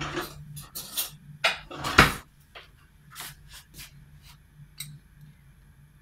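Kitchen utensils being handled: several knocks and clatters, the loudest about two seconds in, then lighter clicks of a metal spoon against a glass honey jar.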